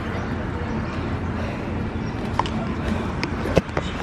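Steady street noise of traffic, with a few light clicks and knocks in the second half.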